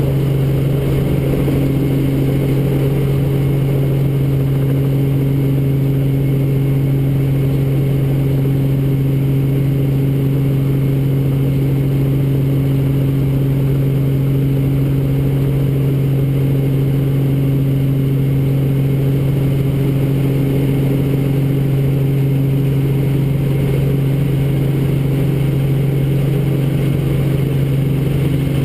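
Robinson R44 Raven II helicopter, its six-cylinder Lycoming engine and rotors heard from inside the cockpit: a loud, steady drone with a strong low hum that does not change while the helicopter lifts off and moves low over the airfield.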